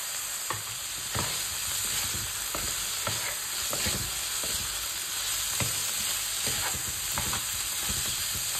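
Chicken and mushrooms sizzling in a frying pan as they are stirred, with a utensil making irregular knocks and scrapes against the pan. The mushrooms, used from frozen, have let out water, which is being fried off so the pieces brown.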